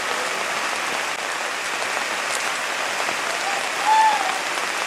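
Heavy downpour: a dense, steady hiss of rain. A voice calls out briefly near the end.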